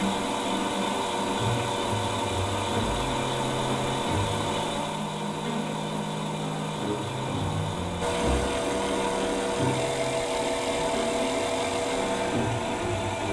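Automatic gold chain-making machine running steadily as it forms fine gold wire into chain, with background music.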